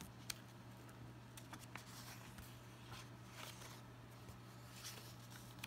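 Faint rustle of a picture-book's paper page being turned by hand, with a few soft ticks of paper and fingers, over a low steady hum.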